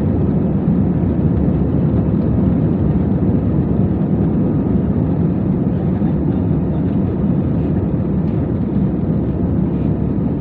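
Steady low cabin noise of an airliner: jet engines and rushing air heard from inside the passenger cabin, even and unchanging.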